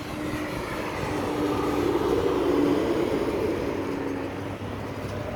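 Truck driving past on the road: the rumble swells to a peak about two and a half seconds in and then fades, with a steady whine that drops slightly in pitch as it goes by.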